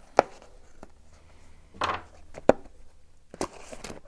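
Four sharp clacks and knocks, a second or so apart, from handling bicycle wheel parts and tools while mounting a tyre and tube.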